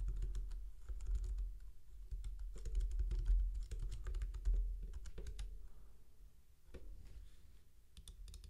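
Typing on a computer keyboard: a quick run of key clicks that thins out after about five seconds to a few scattered clicks, over a low steady hum.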